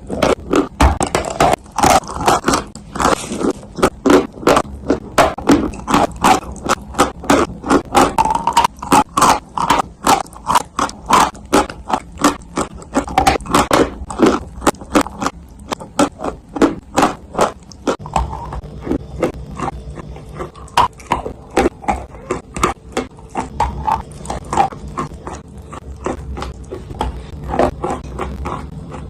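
Chunks of dry clay being bitten and chewed: a rapid, continuous run of sharp, crisp crunches, several a second. A low steady hum joins about two-thirds of the way through.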